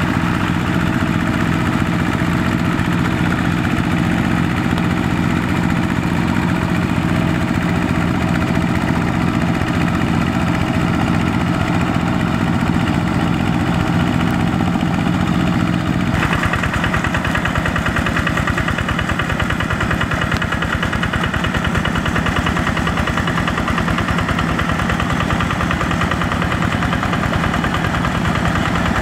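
Single-cylinder diesel engine of a Quick G1000 two-wheel hand tractor running steadily under load as it plows a flooded rice paddy. The sound shifts abruptly about sixteen seconds in.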